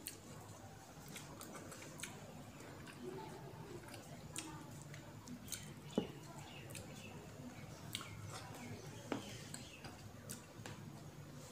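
A person eating chicken curry by hand: quiet chewing and mouth smacking with scattered sharp clicks every second or two, the loudest about six seconds in.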